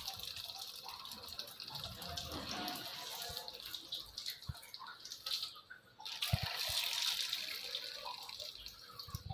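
Water running steadily out of a water purifier's sediment filter through a plastic tube into a drain, as the filter is flushed. The flow sound drops away briefly about five and a half seconds in, and a few light knocks come from the tubing being handled.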